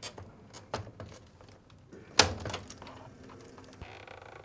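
Plastic wire-harness connectors being released and pulled off a Fisher & Paykel washer's motor control module circuit board: a handful of small clicks and snaps, the sharpest about two seconds in.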